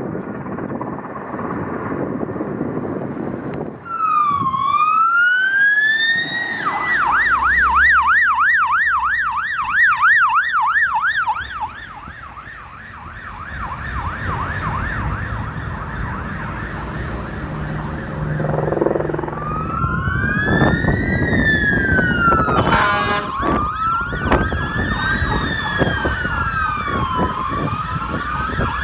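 Fire truck sirens passing. About four seconds in one starts with a rising wail, then switches to a fast yelp. After a quieter spell of engine and tyre noise, two slow wails overlap, with a short horn blast partway through.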